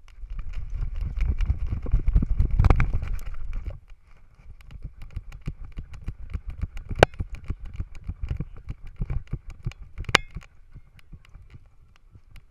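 A GoPro strapped to a miniature schnauzer's harness knocks and rattles with each quick stride as the dog runs. Wind rumbles on the microphone for the first four seconds or so. Two sharper knocks come about seven and ten seconds in.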